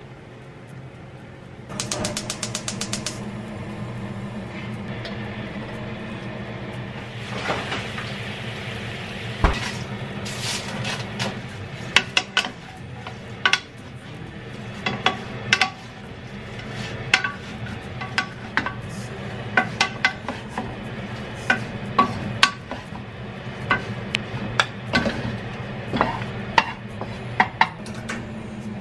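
A spatula stirring and tossing fried dried whitebait sheets in soy-sauce seasoning in a frying pan, scraping and knocking against the pan with many sharp irregular clicks, over a soft sizzle. A brief fast rattle comes about two seconds in.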